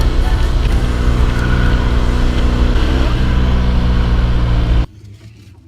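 BMW R1200GS Adventure's boxer-twin engine running at a steady pitch. It cuts off abruptly about a second before the end.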